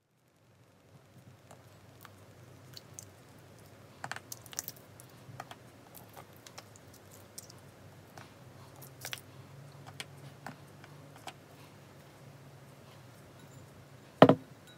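Scattered light clicks and taps of small plastic bow-shaped pieces being lifted out of a glass dish of clear slime and set down on a tabletop. One loud knock near the end as a large glass bowl is put down.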